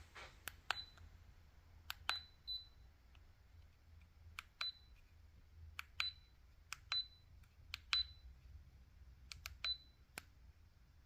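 Buttons on the Leica Disto D510 laser distance meter's new keypad being pressed: sharp clicks, most followed by a short high beep, about nine beeps spread irregularly over the eleven seconds.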